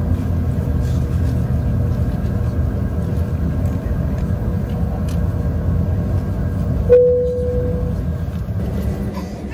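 Steady low rumble inside the cabin of a Bombardier CRJ-900 airliner on the ground at the end of a flight. About seven seconds in, a single cabin chime rings and fades as the seatbelt sign goes off, and the rumble eases after it.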